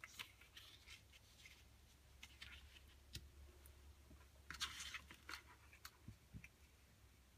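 Faint rustling, scraping and light taps of paper and photo cards being handled and laid down on a cutting mat, with a short, louder scrape about four and a half seconds in, over a low background hum.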